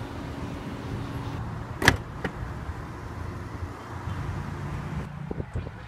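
2014 Mercedes-Benz CLS 550's power trunk lid closing by itself at a touch of its one-touch close button. It latches shut with one sharp click about two seconds in, and a smaller click follows just after.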